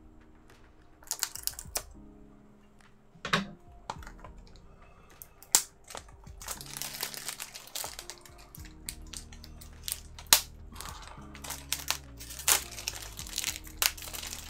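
Hard plastic clicks and crinkling as a Blu-ray case is worked into its slipcover, with sharp snaps at irregular moments and steadier crinkling through the second half. Quiet music plays underneath.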